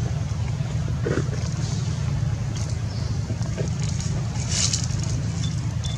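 Steady low rumble, with a few faint short higher sounds over it.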